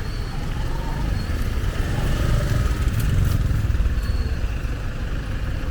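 Street traffic rumbling by, swelling about halfway through as a vehicle, likely a motorbike, passes close.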